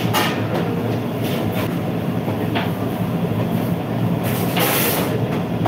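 Steady loud roar of a commercial kitchen's extractor hood fan, with a low hum and a few brief clatters; a short hiss rises over it about four seconds in.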